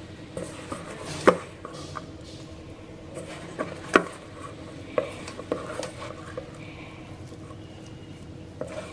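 Hands kneading soft wheat-flour dough in a stainless steel bowl: quiet squishing broken by scattered sharp knocks of the hand against the steel, the loudest about a second in and about four seconds in. A faint steady hum underneath.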